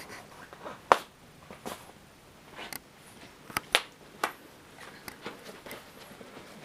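French bulldog puppies playing with their toys: an irregular run of sharp clicks and knocks, the loudest about a second in and several more close together in the middle.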